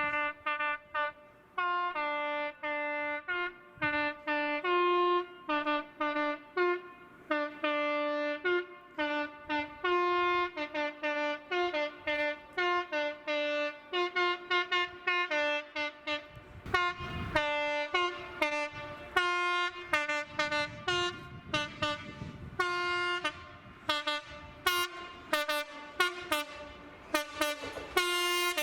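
Train horns sounding a rapid string of short two-tone blasts, the notes stepping back and forth between a lower and a higher pitch. The blasts come quicker and more densely near the end.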